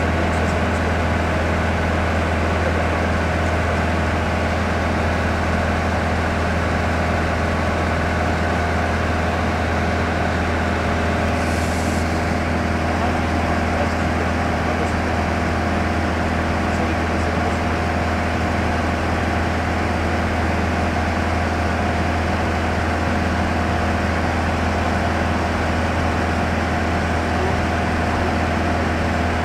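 Steady cabin drone of a light touring aircraft in cruise: engine and propeller hum that holds level throughout, with a short hiss about twelve seconds in.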